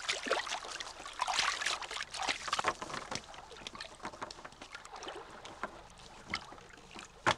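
Water splashing and dripping as a wet fishing net full of fish is hauled up and shaken out over a boat: irregular slaps and patters, busiest in the first few seconds and thinning out later, with a sharp click near the end.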